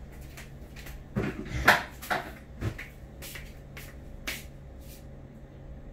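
Light knocks and clicks of kitchen items being handled, several close together between about one and three seconds in, then a few scattered ones, over a steady low appliance hum.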